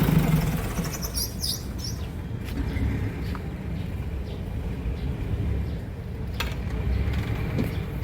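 A backhoe loader's diesel engine idling, its steady hum stopping about half a second in; after that a few birds chirp over a low rumble.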